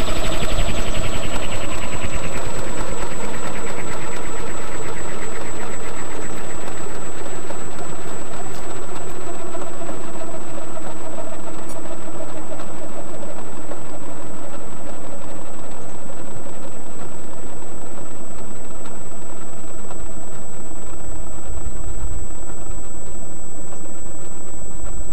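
Onboard sound of a large radio-controlled AS350 scale helicopter sitting on the ground after landing. Its mechanical whine falls in pitch over the first few seconds as the rotor slows, then a loud, steady rumble and rattle carries on.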